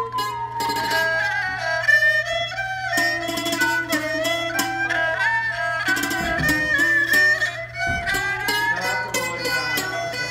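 A jakhe, the Thai crocodile-shaped floor zither, plucked in quick repeated notes, with a Thai coconut-shell two-string fiddle (saw u) bowing a held, sliding melody alongside. A steady low hum runs underneath.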